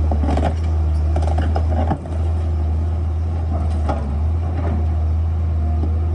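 Excavator's diesel engine running steadily with a deep, constant hum, with several short clanks and knocks scattered through.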